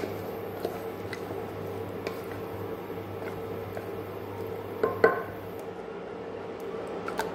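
Wooden spatula stirring rice, green peas and water in an aluminium pressure cooker: soft sloshing and scraping, with a sharp knock of the spatula against the pot about five seconds in, over a steady low hum.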